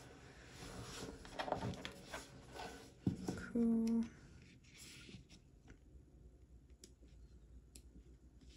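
Paper rustling and light taps as stickers are pressed down and a sticker book's pages are flipped and handled on a tabletop. A woman gives a short, steady hum about three and a half seconds in.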